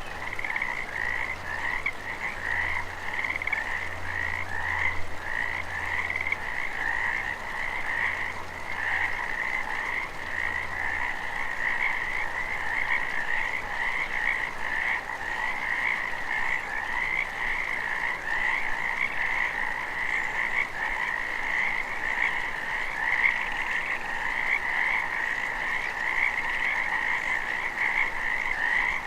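Chorus of many frogs croaking, their short repeated calls overlapping into a continuous din.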